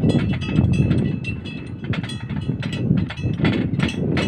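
Light metal clinks and taps, several a second and irregular, with a faint ring, as steel anchor bolts and their template plate are knocked and adjusted by hand. A steady low rumble runs under them.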